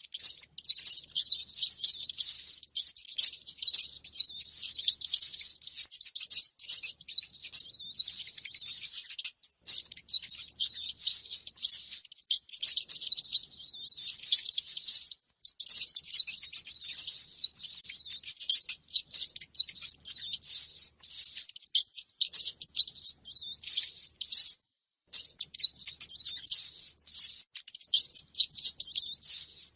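Rats squeaking and chittering: a dense, fast stream of high-pitched squeaks, broken by a few short silences.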